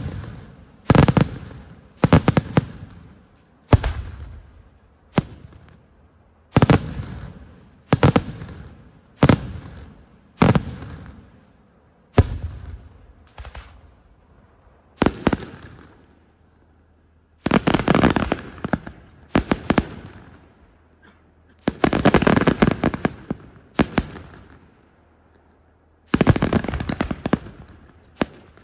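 Aerial firework shells bursting overhead: sharp bangs about one every second and a half for the first dozen seconds, each trailing off, then a short lull and dense volleys of rapid bangs in three bunches near the end.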